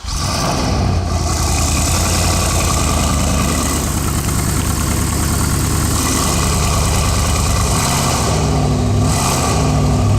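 Porsche engine idling steadily with a deep, even note.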